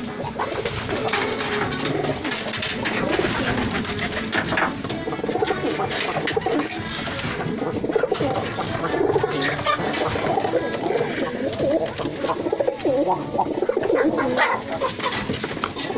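Several doves cooing continuously, their low calls overlapping.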